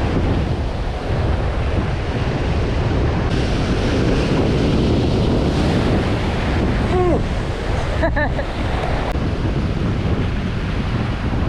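Surf washing onto a beach with wind buffeting the microphone, a steady dense rush. Two short pitched cries cut through about seven and eight seconds in.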